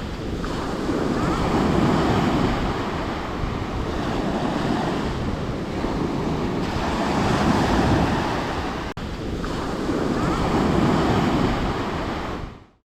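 Sea surf washing onto a beach, swelling and ebbing every few seconds, with wind buffeting the microphone. It breaks off for an instant about nine seconds in and fades out near the end.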